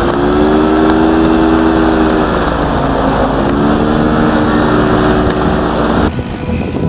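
Single-cylinder Bajaj Pulsar 200 NS motorcycle engine driving the propeller of a homemade powered paratrike, running hard under a loud rushing noise. The engine note sags briefly about halfway through and climbs back, then the sound cuts off abruptly near the end.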